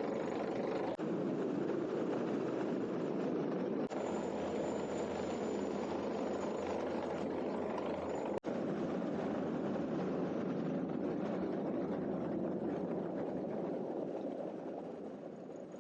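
Rescue helicopter's rotor and engine noise, a steady dense drone, broken by brief sudden dropouts about a second in, at about four seconds and at eight and a half seconds, and fading near the end.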